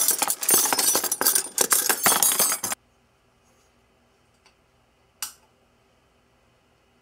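A loud, dense clatter of hard objects that cuts off suddenly a little under three seconds in. Then near silence, with a faint tick and a single sharp click about five seconds in.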